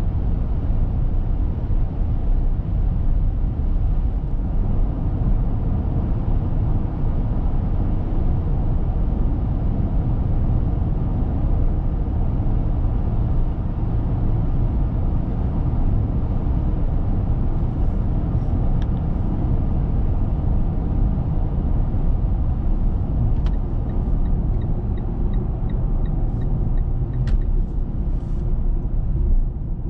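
Steady road and wind noise inside the cabin of a Mitsubishi Eclipse Cross PHEV cruising on an expressway, mostly a low rumble. Near the end there is a brief run of light, evenly spaced ticks, a few a second, with a couple of single clicks before them.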